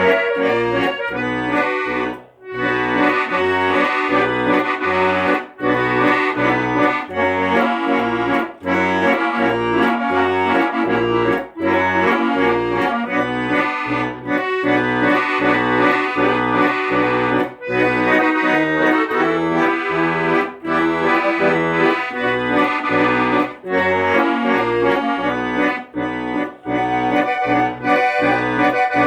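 Instrumental music: a melody over an even accompaniment of low bass notes and chords, with no singing.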